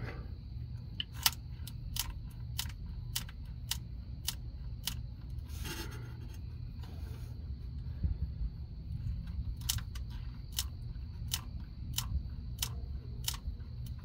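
A series of sharp clicks, roughly one every half second, in two runs with a pause between, over a low steady hum. They come from hand work at a GM neutral safety switch's wiring plug whose adhesive has been heated with a lighter.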